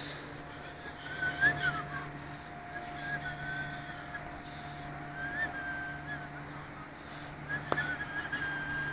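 Slowly moving passenger train coach with a steady low hum, and short high wheel squeals coming every couple of seconds. A single sharp click sounds near the end.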